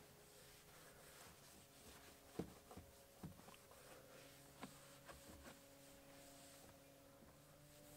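Near silence: a faint steady hum with a few soft clicks, the loudest about two and a half seconds in.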